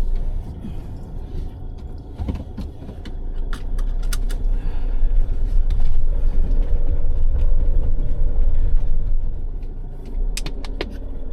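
Motorhome being driven: steady low engine and road rumble that grows louder a few seconds in and eases near the end, with scattered sharp clicks and knocks.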